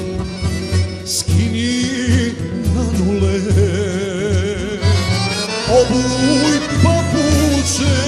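A male singer singing a sevdalinka with a wide vibrato, accompanied by two accordions playing a steady rhythm of low bass notes. The voice comes in about a second in.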